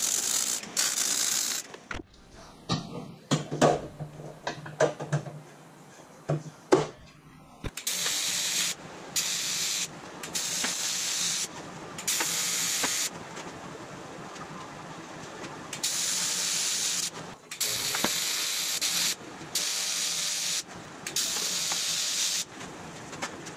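TIG tack-welding an aluminum cowl seam: about eight short hissing arc bursts, each a second or so long, separated by brief pauses. Before them, a couple of short welding bursts on a steel jig, then a few seconds of clicks and knocks as the work is handled.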